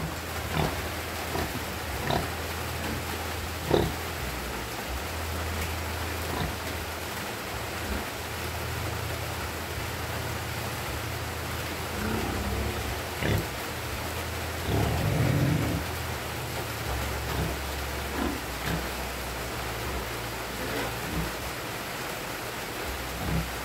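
Piglets grunting in their pen, a louder grunt about halfway through, over a steady noisy background with a low hum and scattered knocks.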